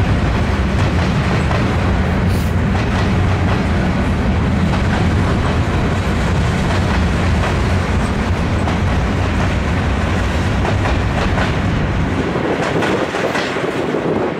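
Norfolk Southern freight train of empty steel gondola cars rolling past, with a steady, heavy rumble of wheels on rail. About twelve seconds in the deep rumble drops away, leaving sharper clicks of wheels over the track.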